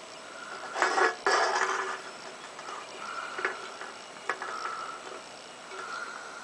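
Aluminium pop can scraping and knocking against a glass case: two loud scrapes about a second in, then a few sharp taps.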